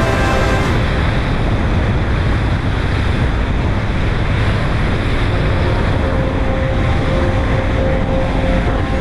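Sunseeker Manhattan 64 motor yacht under way: a steady low drone with water rushing past and wind buffeting the microphone.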